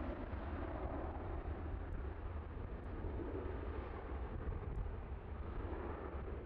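Boeing 737-800 jet engines during the takeoff roll, heard from beside the runway as a steady, low rumbling noise.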